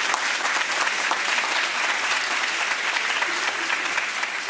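A large crowd applauding: a dense, steady patter of many hands clapping.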